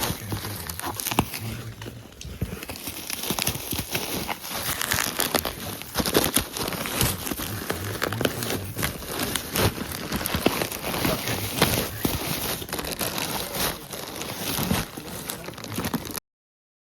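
Packaging crinkling and rustling as it is handled and unwrapped by hand, with many small clicks and knocks; it cuts off suddenly near the end.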